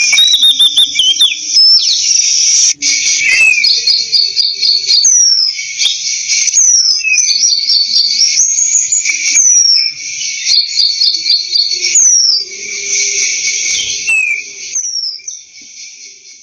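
Oriental magpie-robin singing a varied run of clear whistled phrases, trills and downward-sliding notes, over a dense steady insect buzz. The whole fades out near the end.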